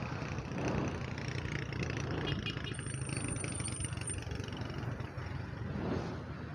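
Steady wind rushing over a cheap clip-on lavalier microphone on a bicycle rider coasting downhill at speed, with a low rumble beneath. A brief thin high whine comes in about three seconds in.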